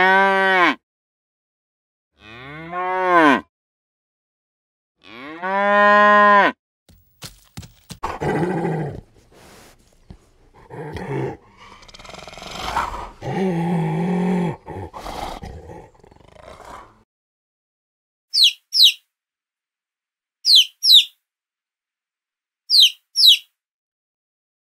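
A large mammal calling in three long calls that rise and fall in pitch, then rougher grunting calls for about ten seconds. After a pause, a bird gives high chirps in quick pairs, three pairs about two seconds apart.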